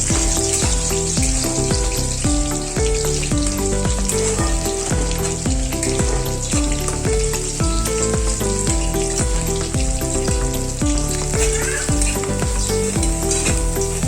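Bangda (Indian mackerel) frying in hot oil, a steady sizzle with fine crackling. Instrumental background music with a repeating bass line plays throughout.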